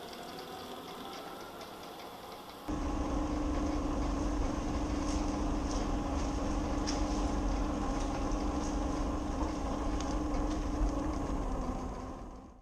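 Traxxas TRX-4 RC crawler's electric motor and gearbox running with a steady whine. About three seconds in it jumps suddenly louder and closer, a steady drone with low rumble and scattered light clicks.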